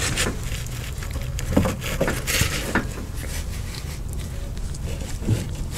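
Scattered light clicks, scrapes and rustles as a gloved hand works a PTO shaft yoke onto a tractor's splined PTO stub, lining up the splines, over a low steady hum.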